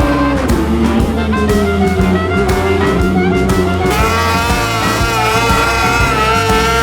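Background music with a steady low beat and sustained instrument tones; about four seconds in, a new layer of wavering higher tones comes in.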